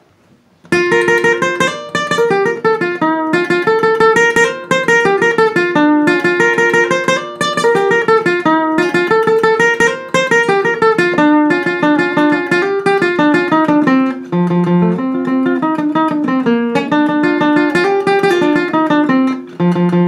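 Acoustic guitar playing a picked lead melody (punteo) over bass notes and chords, starting under a second in and running on without a break.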